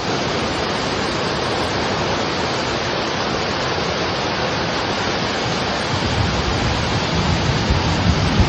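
Heavy rain pouring down in a loud, steady hiss. A low rumble builds in underneath from about six seconds in.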